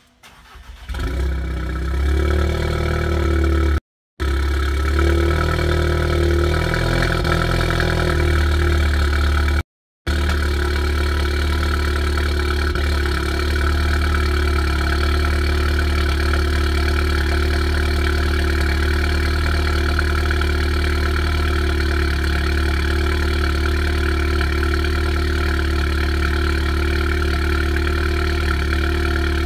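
2016 Audi S3's turbocharged 2.0-litre four-cylinder starting about a second in through an AWE SwitchPath exhaust with its valves open, then holding a fast cold-start idle. The idle wavers for the first several seconds and then settles steady. The sound cuts out completely twice, very briefly.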